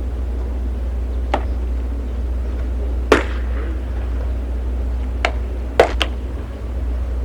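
Pitched baseballs popping into a catcher's mitt: five sharp pops at uneven intervals, the loudest about three seconds in and just before six seconds, over a steady low rumble.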